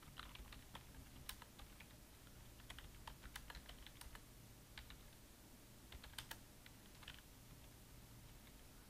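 Faint computer keyboard typing: irregular keystrokes, some in quick runs, over a low steady hum.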